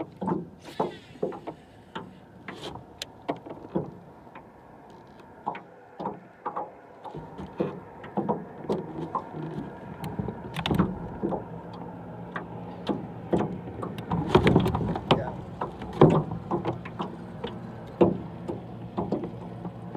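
Scattered knocks and clicks of fishing gear against a boat. About seven seconds in, a steady motor hum with a pitched whine starts and keeps running.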